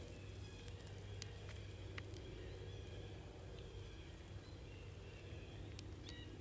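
Faint outdoor ambience with a low steady hum, a few soft clicks, and a few short, faint high chirps.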